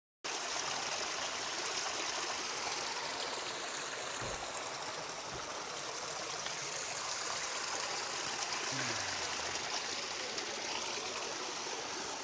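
A small mountain stream running over rocks, a steady rushing and trickling that cuts in abruptly just after the start.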